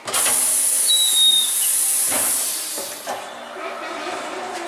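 Compressed air hissing loudly into a newly mounted car tire on a tire changer as it is inflated. The hiss starts abruptly, runs about three seconds, then dies down.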